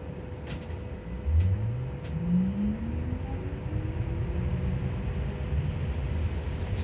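Electric bus traction motor whining, rising steadily in pitch as the bus accelerates, over low road rumble. Three sharp clicks sound in the first two seconds.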